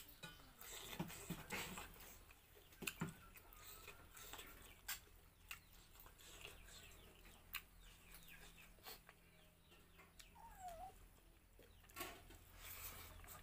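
Quiet sounds of eating rice by hand from a plate: scattered soft clicks and mouth smacks. A brief faint animal call comes about ten seconds in.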